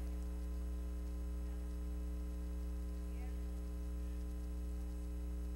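Steady low electrical mains hum with a row of higher overtones, running unchanged through a pause in the speech. A faint voice murmurs briefly about three seconds in.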